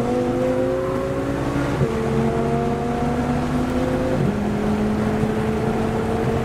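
Lamborghini Huracán Performante's 5.2-litre V10 on its standard exhaust, pulling under light throttle. Its pitch climbs slowly and drops sharply twice as it shifts up, about two and four seconds in.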